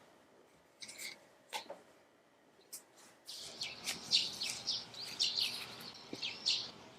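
Small birds chirping in quick, repeated high calls, starting about three seconds in; a few soft rustles or clicks come before them.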